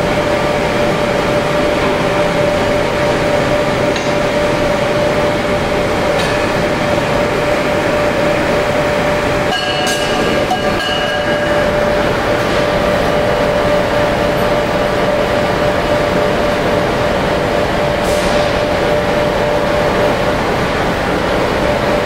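Gas-fired crucible furnace running hot: a loud, steady rush of burner and blower noise with a constant whine, broken only by a few faint clicks.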